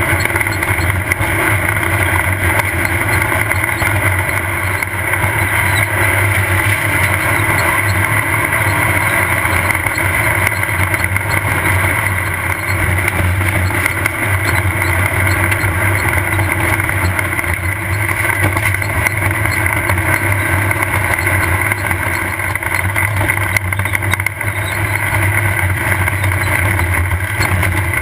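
Off-road race buggy's engine running hard and steadily under way, a loud, unbroken drone.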